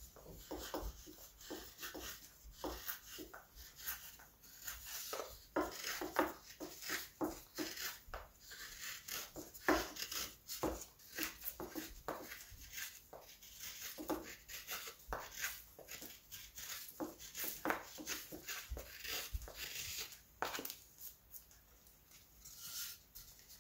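Small knife shaving thin cuts off a balsa-wood propeller blade: a quick run of short scraping strokes, several a second, easing off near the end.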